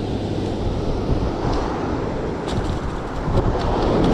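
Wind buffeting the microphone over surf washing up the beach, a steady rushing noise that grows louder near the end, with a few faint light ticks.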